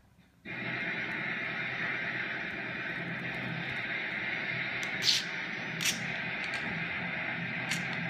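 Budgerigar giving a few short, sharp chirps about five seconds in, again a second later and near the end, over a steady background hiss.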